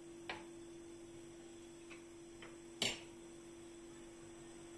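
A steady low electrical hum with four short, sharp clicks; the loudest comes just before three seconds in.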